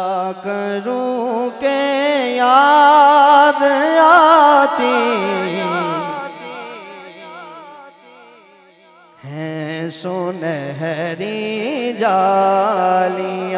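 A man sings the opening of a naat solo into a microphone, in a long drawn-out line with heavy vibrato. The line climbs to its loudest and highest a few seconds in, fades away, and then starts again lower and strongly a little after the middle.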